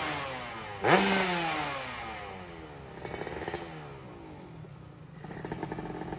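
Yamaha RX-King 135cc single-cylinder two-stroke engine revved with a sharp throttle blip about a second in, its revs then falling slowly away. A smaller blip follows, and the engine settles into a crackly, uneven two-stroke idle near the end.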